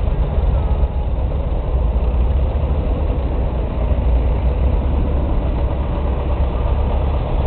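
Tractor engine running steadily at low revs, a deep, even engine sound.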